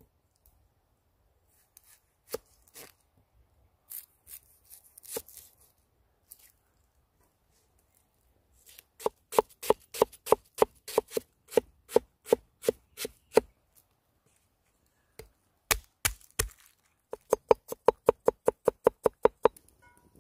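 Large knife cutting an onion on a thick wooden chopping board. It opens with a few scattered cuts and scratchy rustles, then comes steady chopping at about four to five strokes a second, each a sharp knock of the blade on the wood. After a short pause there is a faster run of chops, about seven a second, near the end.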